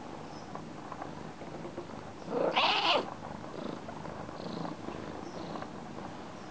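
Persian cat purring steadily while its head and body are rubbed, with soft rustles of the hand in its fur. About two and a half seconds in comes a short, louder noisy sound.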